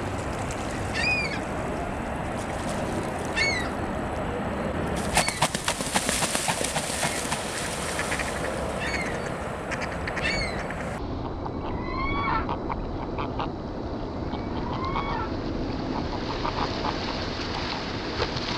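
Waterfowl giving short honking calls, one or two at a time every few seconds, over a steady background rush. A run of sharp clicks or splashes comes about a third of the way in.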